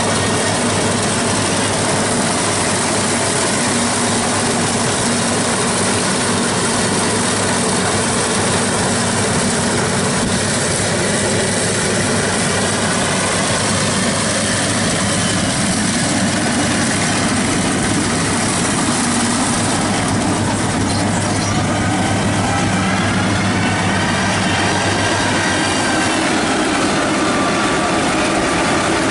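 Yanmar 82 rice combine harvester running under load while cutting rice: its diesel engine and threshing and cutting machinery make a steady, loud drone, with slight shifts in pitch in the second half.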